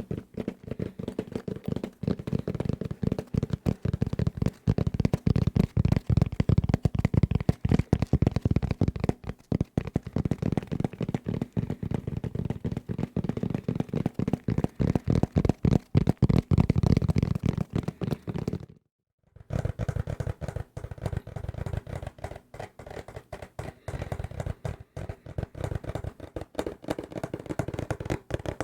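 Fast, dense fingertip tapping on desk objects close to the microphone, many taps a second, mostly dull and low. The tapping stops briefly about two-thirds through, then resumes on a thinner-sounding surface.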